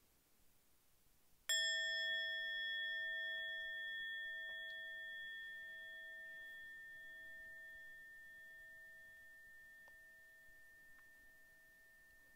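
A meditation bell struck once about a second and a half in, ringing on with several steady tones and fading slowly over about ten seconds, sounded as the meditation begins.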